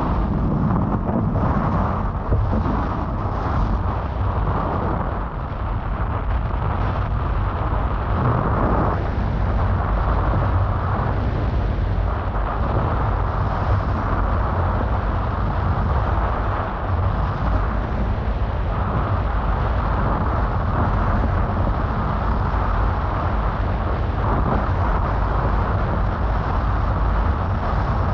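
Wind buffeting a camera's microphone while windfoiling: a loud, steady low rumble with a rushing hiss above it.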